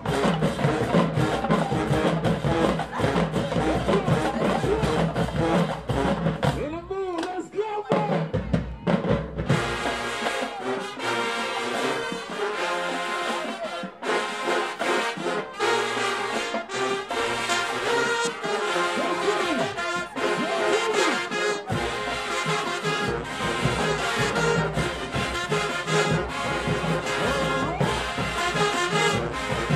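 College marching band playing a field show: brass and drumline together. The drums drop out about ten seconds in, the horns play on alone for about twelve seconds, and then the drums come back in.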